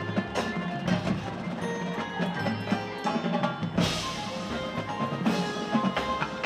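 High school marching band playing its field show, drums to the fore with repeated sharp hits over held notes. A strong accent lands about four seconds in.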